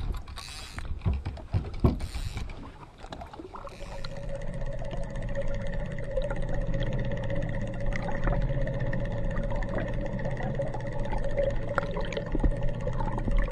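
Water sloshing against the boat's side, then, about four seconds in, underwater sound: the steady whine and low hum of the trolling boat's motor carried through the water, with water rushing past the underwater camera.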